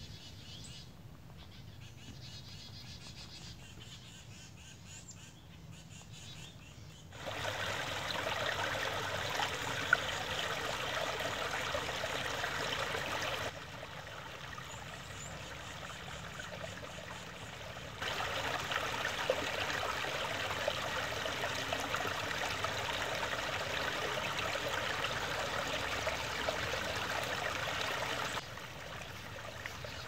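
Woodland creek trickling steadily over stones, loud for several seconds, softer for a few, then loud again until near the end. Before the water starts there are faint bird chirps over quiet forest air.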